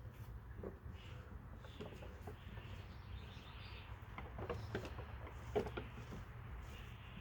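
Faint background bird calls and chirps, with a few scattered short clicks and taps, the loudest about five and a half seconds in, over a low steady rumble.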